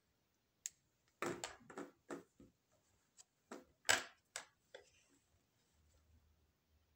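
Handling of a drawing sheet and tools on a wooden table: a run of short clicks, knocks and paper rustles, loudest near the middle, dying away after about four and a half seconds.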